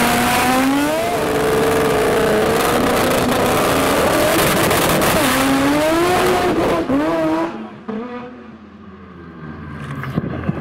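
Mazda 13B rotary engine of a drag-racing RX2 at full throttle, revs climbing in each gear and dropping back at each gear change. About seven and a half seconds in it falls away suddenly to a much quieter engine sound.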